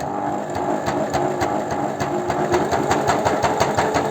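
Janome Sewist 509 sewing machine running and stitching through very thick multi-layer fabric, the needle hammering with a rapid, speeding-up knock like a jackhammer. The loud knocking comes from the thick fabric being sewn, not from a fault.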